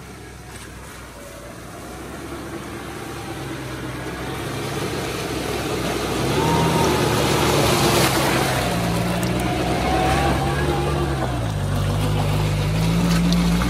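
Maruti Suzuki Gypsy's petrol engine revving as the 4x4 ploughs through a deep mud pit, its tyres churning mud and water. The engine grows louder as the vehicle approaches and passes close by, its pitch stepping up and down with the throttle, and it is loudest about eight seconds in.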